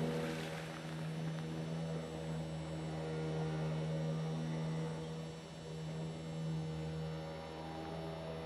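An engine running steadily, a low even hum with overtones, and a brief splash of water right at the start.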